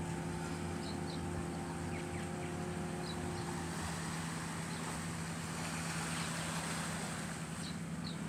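Small boat's outboard motor running at a steady hum as the dinghy moves off across the water, one of its tones dropping out a little under four seconds in. Faint short chirps sound now and then above it.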